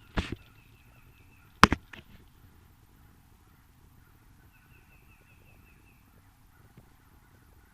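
Sharp snaps of airsoft guns firing: two close together at the start and the loudest about a second and a half in. Behind them a bird calls twice in a quick run of repeated high notes.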